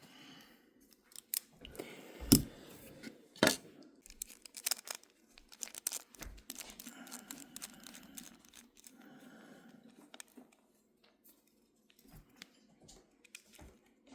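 Small metal folding-knife parts and tools being handled during reassembly: scattered clicks and taps with faint rustling, the sharpest click a little over two seconds in and another about a second later, then softer handling that quiets for a while past the middle.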